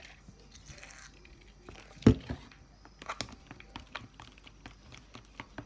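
Hands working a sticky, not-yet-activated glue slime and its plastic bag: a run of small wet clicks and crinkles, with one louder thump about two seconds in.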